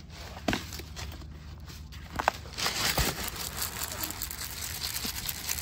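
Granular fertilizer being shaken out of its container onto the potting soil in a plant pot: a few separate taps, then from about two and a half seconds in a dense stream of small pellets ticking onto the soil.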